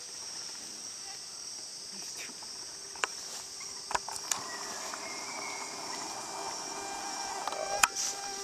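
Steady high-pitched chorus of rainforest insects, with the hum of mosquitoes flying close to the microphone. A few sharp clicks of camera handling come through, the loudest near the end.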